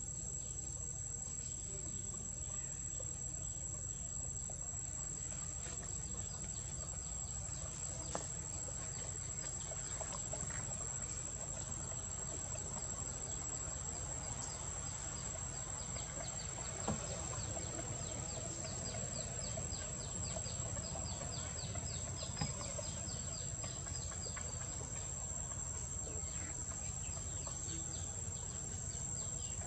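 Forest insects calling: a steady high-pitched drone, joined about halfway through by a rapid ticking insect call that fades near the end, over a low steady rumble. Two brief faint clicks sound in the middle.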